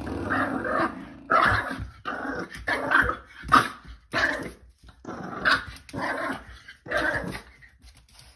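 Small white dog growling, then barking and yapping in short repeated bursts about twice a second, excited by a spring doorstop.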